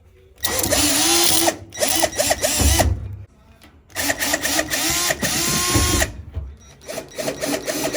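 Cordless drill/driver backing screws out of a dryer's top panel, the motor running in several spurts of a second or two, its pitch rising and falling as it spins up and slows, with shorter bursts near the end.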